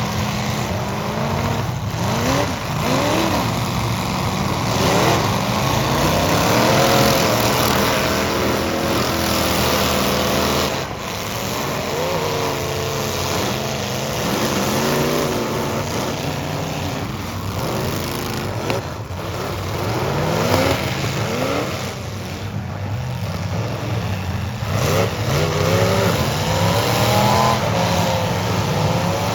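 Several demolition derby cars' engines revving up and down at once, with a few sharp bangs of cars hitting each other.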